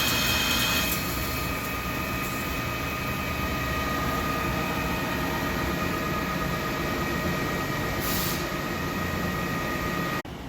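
Hankook Protec 7NA CNC lathe running, a steady machine noise with high whining tones. A high hiss stops about a second in, a brief hiss comes near the end, and the sound drops abruptly just before the end.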